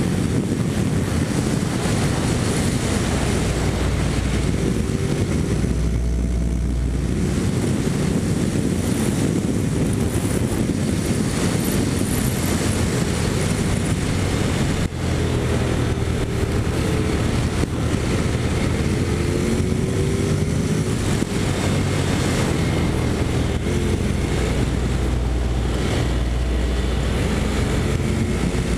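Honda NC750X's parallel-twin engine running steadily on the road, its pitch climbing a few times as it accelerates, with wind noise over the microphone.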